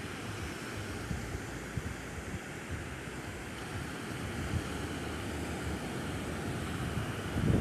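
Sea surf washing on a sandy beach, with wind buffeting the microphone; the buffeting grows louder near the end.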